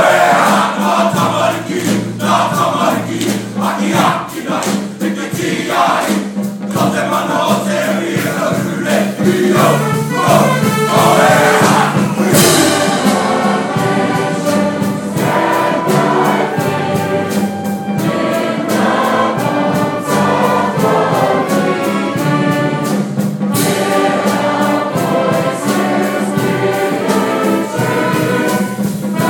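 A group of young men performs a haka in loud rhythmic shouted chanting for about the first twelve seconds. Then the sound changes suddenly to a hall full of voices singing together, with brass instruments playing along.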